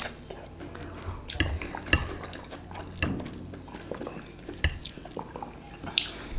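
Fork and spoon clinking against a glass dish and bowl of noodle soup: a handful of separate clicks spread over several seconds.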